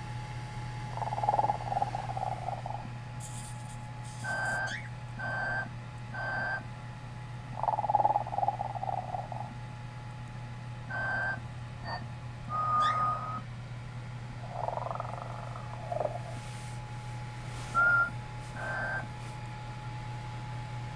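Telco animated Santa toy's electronic snoring: raspy snores alternating with short whistling breaths, one of them a rising whistle, repeating in a cycle of about seven seconds. A steady low hum runs underneath.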